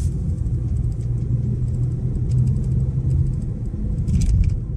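Car driving, its road and engine rumble heard from inside the cabin, steady and low, with faint light ticks and a short rustle about four seconds in.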